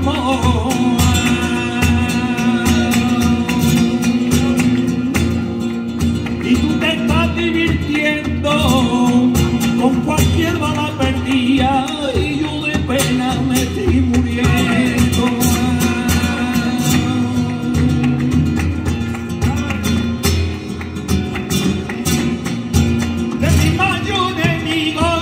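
Live flamenco bulerías: a male cantaor sings an ornamented, wavering line to flamenco guitar accompaniment, over a steady pattern of palmas (rhythmic handclapping).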